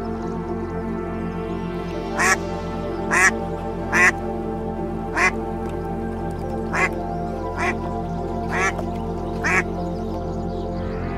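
Domestic ducks quacking: eight short quacks, roughly one a second, starting about two seconds in, over steady background music.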